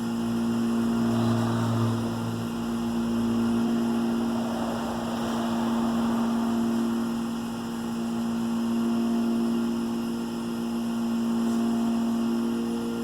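Wood lathe motor running with a steady hum, with a rubbing hiss that swells about a second in and again around five seconds in as polishing paste is buffed onto the spinning wood.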